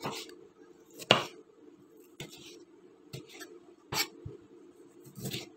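Kitchen knife slicing through tomatoes and knocking on a wooden cutting board, about one stroke a second.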